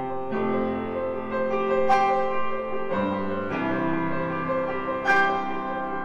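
Background piano music: held chords that change a few times, with a bright struck note twice, about two and five seconds in.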